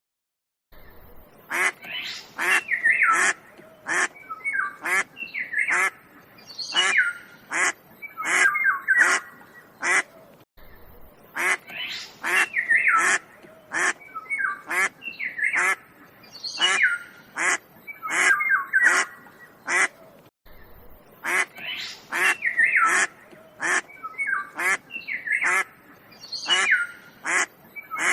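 Ducks quacking in quick runs of short, harsh calls. The same stretch of quacking starts over about every ten seconds, as a looped recording.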